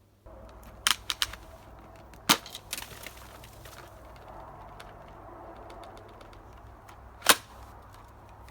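Sharp plastic clicks and knocks as the Dyson V8 cordless vacuum's clear dust bin is released and emptied: a quick cluster about a second in, a louder knock a little after two seconds, and another near the end, over a low steady hum.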